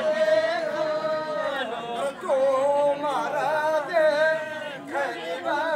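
Unaccompanied voices singing a slow devotional folk song for the circle dance, with long held, wavering notes broken by short pauses.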